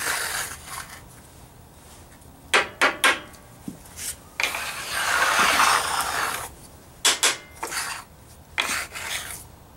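A hand scraper pushed across a steel workbench top, gathering loose steel filings into a pile. One long scrape comes in the middle, with several sharp clacks of metal on metal before and after it.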